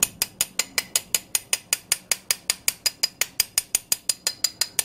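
Ratcheting wrench clicking steadily, about six clicks a second, as it is worked on a fitting at the bottom of an old carburetor's float bowl.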